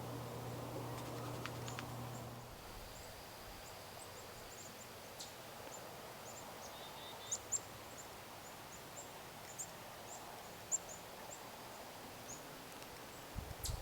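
Quiet outdoor ambience with small birds chirping faintly: scattered short, high chirps throughout. A low steady hum stops about two and a half seconds in, and there are a few soft low thumps near the end.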